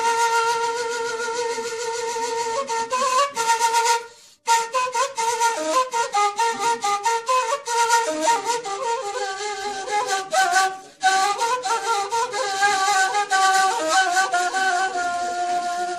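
Music: a single flute-like wind instrument playing a melody that moves in steps from note to note, with two short breaks about four and eleven seconds in.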